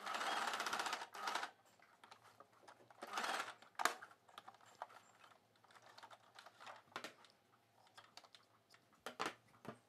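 Domestic electric sewing machine stitching in short bursts: a run of about a second at the start, a brief one right after, another about three seconds in and two short ones near the end, with small clicks between as the fabric is turned under the needle.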